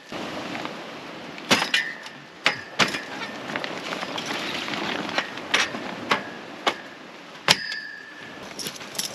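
About ten sharp metallic clinks and knocks, scattered through the stretch, some ringing briefly, over a steady rushing noise.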